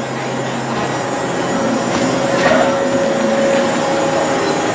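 Steady mechanical whir with a constant low hum from a chair-swing carousel's drive machinery as the ride turns, growing slightly louder.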